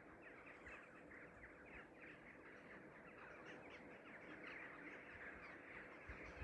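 Faint, dense chattering of a flock of small birds: many quick overlapping chirps.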